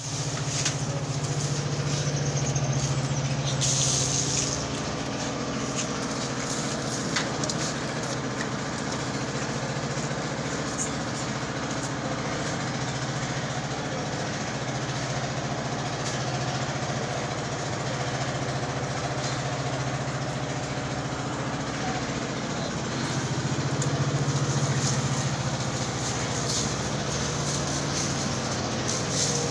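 A steady engine-like hum, running without a break.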